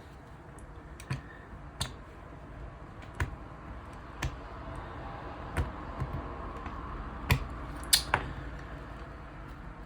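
Small repair tools clicking and tapping against an opened smartphone's parts during disassembly. About eight sharp, irregular clicks, the loudest two close together near the end.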